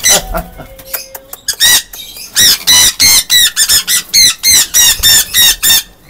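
Sun conures screeching in alarm as one is grabbed by a gloved hand: a rapid run of loud, harsh calls, about four a second, with a brief lull about a second in.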